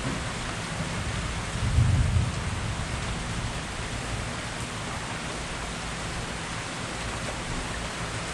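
Steady rain falling, with a short low rumble of thunder about two seconds in.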